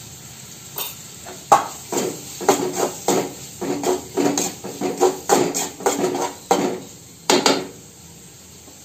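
A steel spoon clinks and scrapes against a steel kadai while stirring, about twice a second, with a short metallic ring after each stroke. The strokes start about a second and a half in and stop about a second before the end.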